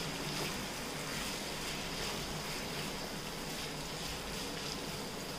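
Sliced onions frying in hot mustard oil in a kadhai, a steady sizzle, partway through being browned to golden.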